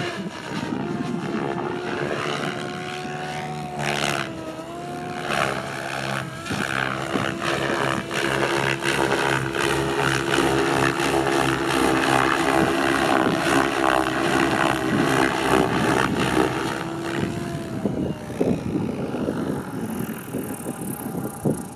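SAB Goblin 700 radio-controlled helicopter flying: a steady whine from its motor and spinning rotor, over a rushing blade sound. The pitch dips briefly about four seconds in. Near the end the whine falls in pitch and fades as the helicopter comes down onto the grass.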